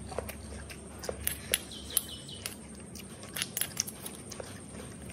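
Light scattered clicks and taps of a spoon and fingers handling a raw oyster in its shell, with a short high chirp about two seconds in.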